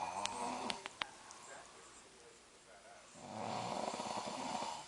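A man snoring in his sleep: two snores about three seconds apart, the first ending about a second in with a few short clicks.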